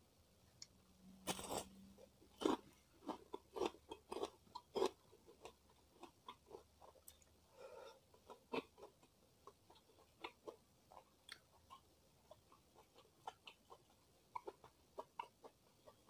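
Close-miked person eating: a crisp crunchy bite about a second and a half in, then quick chewing of crunchy food that slows into sparser, softer chewing clicks.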